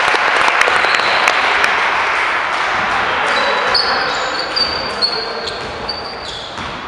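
Basketball game in a gym: a ball bouncing on the hardwood floor and short high squeaks of sneakers, over a loud hall din that slowly dies down.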